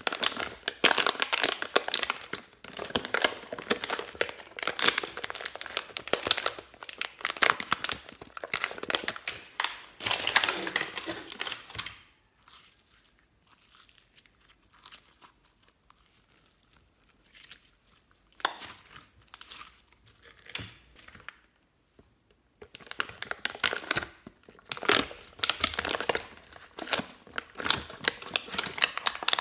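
Fingers pressing and scooping slime out of the wells of a plastic palette tray, with dense sticky crackling. It goes quiet for about ten seconds in the middle, with only a few faint clicks, then the crackling starts again.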